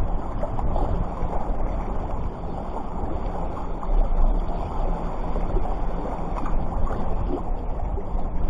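Wind buffeting the microphone, a steady low rumble that rises and falls, with the wash of sea surf underneath.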